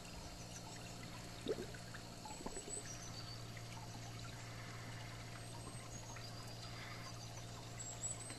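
Garden pond water trickling, over a steady low hum, with a brief louder blip about a second and a half in.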